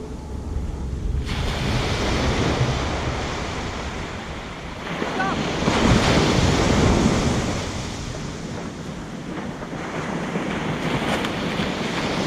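Ocean surf breaking on the beach, with wind buffeting the microphone; the wash swells and ebbs in waves and is loudest about six seconds in.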